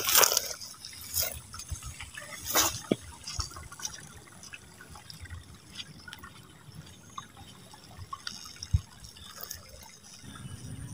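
Water splashing and dripping: two louder splashes in the first three seconds, then softer drips and trickles.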